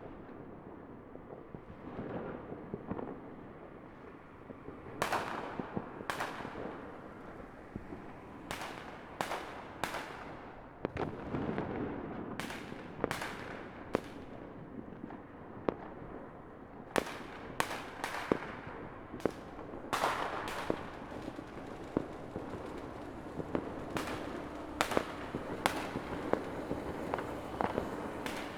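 Fireworks going off: a long run of sharp bangs at irregular intervals, often two to four in quick succession, each trailing off briefly, over a continuous background din of further bursts.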